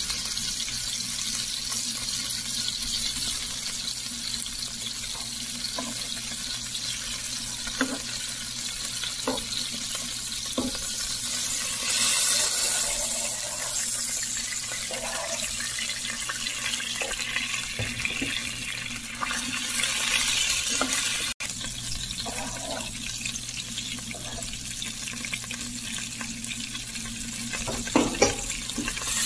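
Rib steaks sizzling in hot olive oil and melting butter in a frying pan: a steady hiss that swells twice for a couple of seconds, with a few light clicks of metal tongs against the pan.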